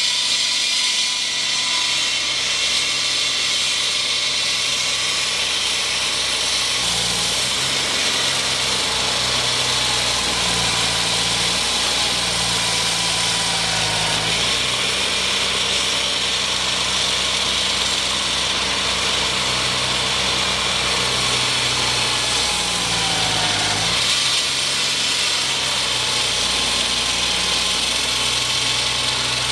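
Construction machinery running steadily with a loud hiss over a low engine drone; the engine's pitch steps up and down a few times as it changes speed.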